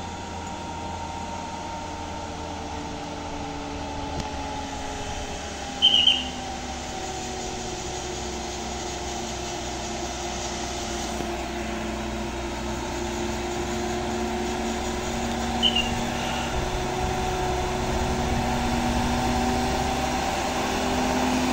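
An Isuzu dump truck's diesel engine labouring up a steep incline in a low gear, growing steadily louder as it approaches, its pitch drifting slowly. Two short high chirps cut in, about six seconds in and again near sixteen seconds.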